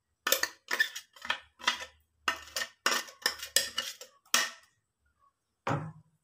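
Steel spoon clinking and scraping against the inside of a stainless-steel mixer-grinder jar as thick rice batter is scraped out: about ten short metallic knocks, two to three a second, then a pause and one more knock near the end.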